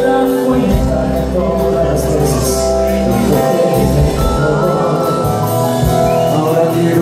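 Live Mexican banda music: a horn section plays held, pitched notes over a tuba bass line, amplified through a concert PA.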